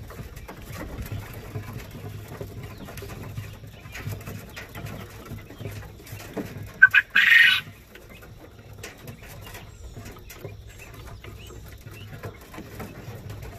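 Quail pecking at a red nipple drinker on a plastic water bucket, faint light clicks over a steady low hum, with one short, loud, harsh burst from the quail about seven seconds in.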